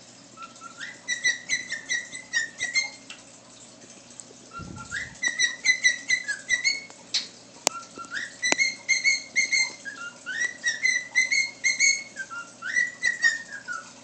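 Male cockatiel whistling a tune in four phrases of quick, short notes, with a few rising slides between them.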